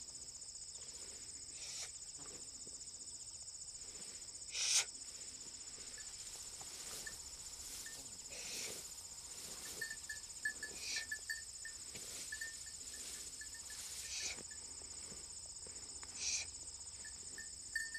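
Insects chirring steadily in a grassy field, with a few short hissing noises, the loudest about five seconds in.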